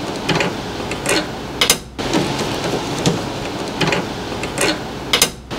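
Hand screwdriver turning the screws of the cable grip on an electric hob's terminal cover: a scattered run of small clicks and scrapes over a steady hiss.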